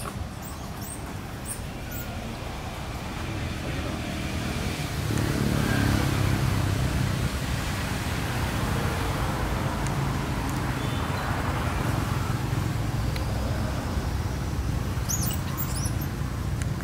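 Steady low rumble like passing road traffic, swelling about five seconds in and staying up, with a few brief high-pitched squeaks near the end.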